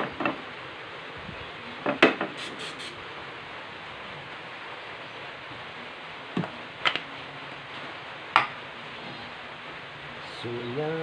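A few sharp knocks and clicks of a non-stick frying pan and an olive oil spray can being handled on a gas stove, over a steady low hiss. A voice starts near the end.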